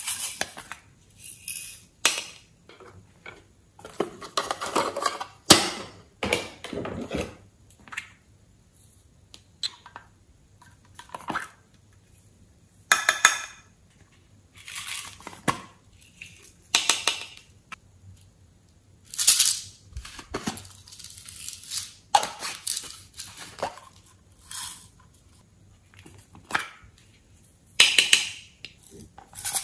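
Small plastic pots of glitter being handled, tapped and set down, with glitter shaken out onto slime in a clear tray: scattered clicks, light clinks and short rustles, a second or two apart.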